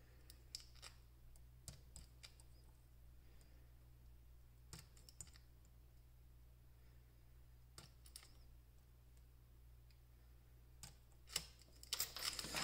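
Portable spot welder with handheld probes firing weld pulses through nickel strip onto 18650 cells, set a little past half power. Faint sharp snaps every few seconds, often two in quick succession.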